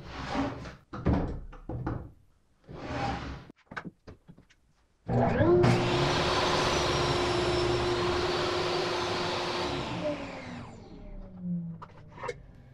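A few knocks and sliding sounds of a plywood sled and panel being handled on a portable DeWalt table saw. About five seconds in, the saw's motor starts suddenly and runs at a steady pitch for about five seconds, then it is switched off and winds down with a falling whine.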